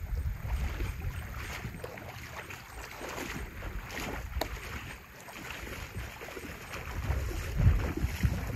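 Wind buffeting the microphone in gusts, over the hiss of lake water lapping and splashing in the shallows. One sharp click a little past the middle.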